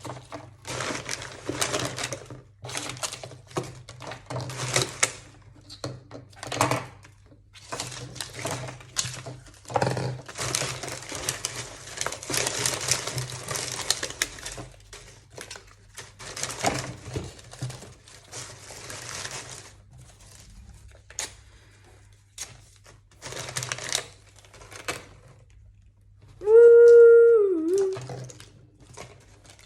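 Plastic packaging and small toy pieces being handled and rustled in irregular bursts as things are packed back into a box. Near the end, a short, loud held note that dips in pitch as it stops.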